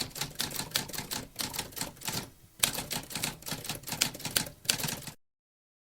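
Typewriter keys clacking in a quick, uneven run of strikes, with a brief pause midway, stopping abruptly about five seconds in.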